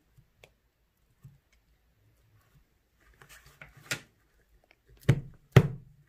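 Clear slime, gone soft and a little sticky, being handled in a plastic tub. A run of small sticky clicks and crackles comes about three seconds in, then two loud thumps about half a second apart near the end.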